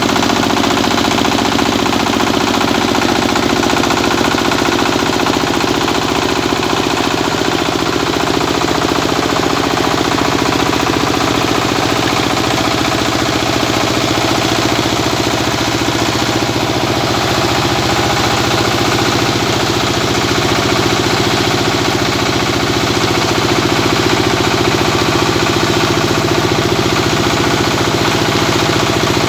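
Small single-cylinder diesel engine running steadily at a constant speed, belt-driving a rice milling machine, with a fast even knock and the mill's rattle over it.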